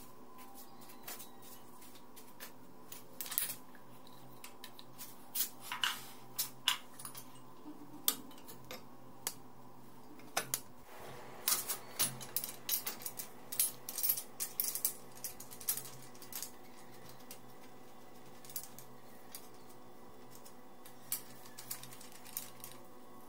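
Metal motorcycle front-end parts clinking and tapping as they are handled and fitted, a scatter of sharp clicks that is thickest in the middle and thins out toward the end, over a steady low hum.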